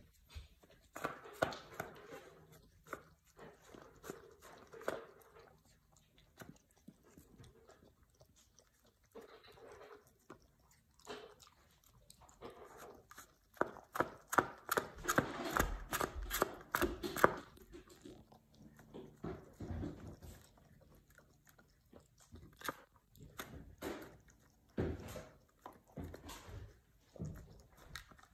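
Siberian husky eating from a small bowl: chewing and biting with sharp little clicks and crackles that come in irregular bursts with short pauses. The busiest stretch falls about halfway through.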